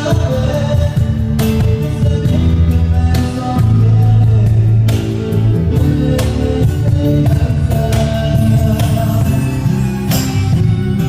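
Live band playing a song: guitar and a steady bass line, with drum cymbal crashes every second or two.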